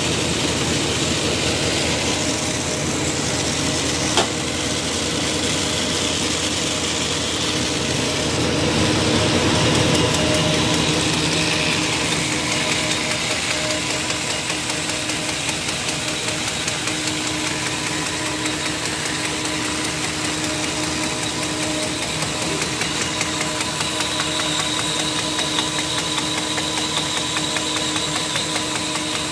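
RZJD 250J roll-fed paper bag making machine running at speed: a steady mechanical clatter with a rapid, even beat over a constant hum, and one sharp click about four seconds in.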